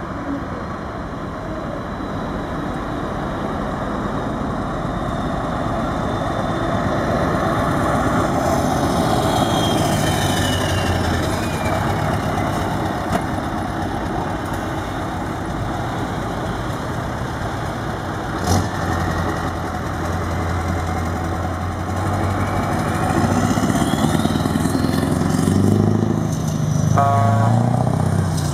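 Scania R500 V8 truck engine running steadily, deepening after a single sharp crack about two-thirds in, then revving up and down near the end.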